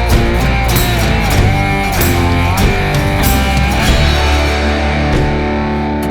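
Background rock music with electric guitar and a steady drum beat; about four seconds in the drums drop out and held guitar chords ring on.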